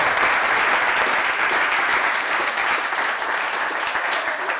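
A roomful of people applauding, a dense steady patter of many hands clapping that slowly dies down near the end.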